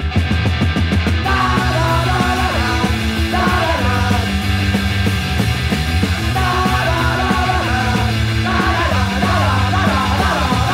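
1977 UK punk rock record with guitar, bass, drums and shouted vocals. The full band comes in louder right at the start, and the shouted singing enters about a second later.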